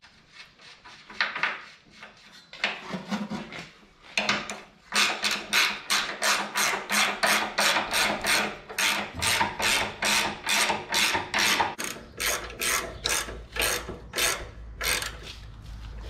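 Hand socket ratchet clicking as a bolt is wound in. A few scattered strokes come first, then from about four seconds in a steady run of quick strokes, about three or four a second.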